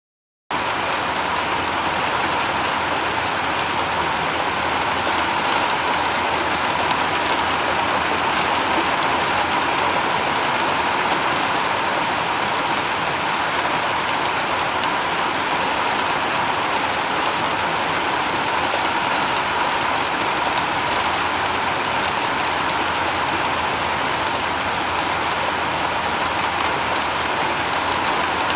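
Steady rain falling on a shingle roof, an even hiss of many drops, starting abruptly about half a second in.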